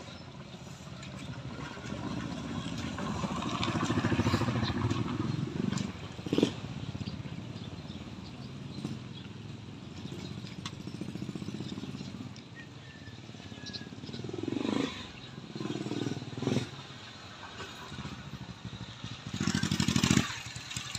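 A motorcycle engine running steadily. It swells to its loudest about four seconds in, then carries on at a lower level, with a few short louder surges in the second half.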